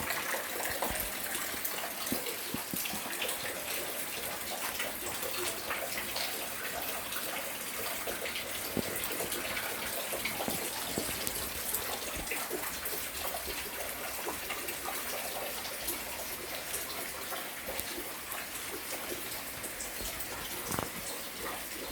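Steady rain falling, with many small drop ticks scattered through an even hiss.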